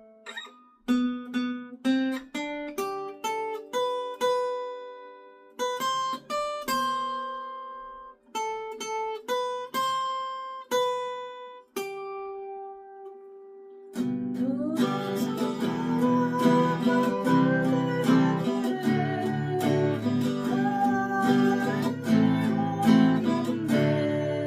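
Acoustic guitar picking a melody one note at a time, each note ringing out and fading. After a held note, a much fuller and louder accompaniment with strumming and a steady bass comes in about 14 seconds in.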